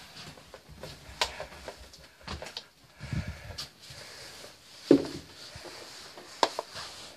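Scattered knocks, clicks and low bumps of things being handled and moved about, the loudest knock about five seconds in.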